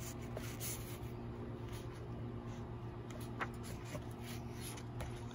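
Faint rustling and small ticks of a book's paper page being handled, over a steady low hum.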